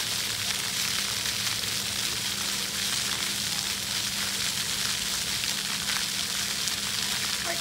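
Splash-pad fountain jets spraying: a steady, even hiss of water, with a faint steady hum underneath.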